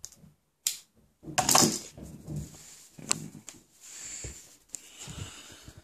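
Clicks, knocks and rustles of a 3D-printed PLA part and pliers being handled, with a louder burst of rustling about one and a half seconds in and a sharp click near the middle.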